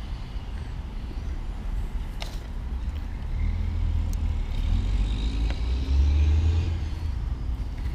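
A motor vehicle passing: a low rumble that swells to its loudest about six seconds in, with a faint rising-then-falling tyre whine on top. A couple of faint clicks come from small parts being handled.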